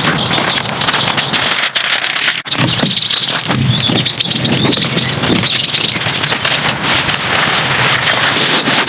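Small birds chirping and tweeting over a loud, steady hiss.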